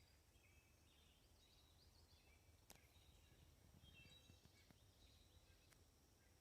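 Near silence: faint outdoor ambience with distant birds chirping, and a couple of faint ticks.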